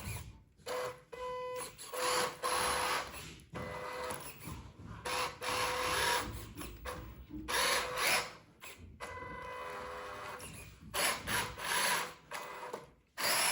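Small electric motors and gearboxes of radio-controlled models whirring in short bursts, starting and stopping every second or so, over a faint steady whine.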